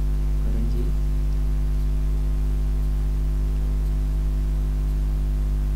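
Steady low electrical mains hum with a buzz of overtones above it, unchanging throughout; nothing else clearly stands out.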